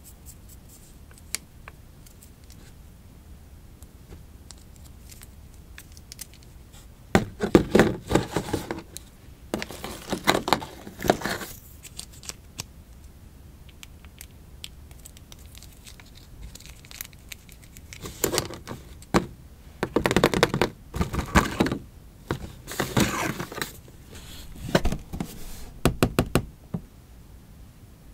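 Hands handling a small plastic Spider-Man figure, its clear plastic stand and plastic wrapping: faint taps at first, then repeated bursts of plastic crinkling and scraping with sharp little clicks.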